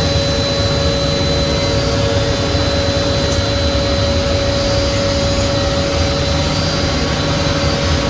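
A four-head CNC mortising machine running, its spindle motors giving a steady whine over a loud machine hum.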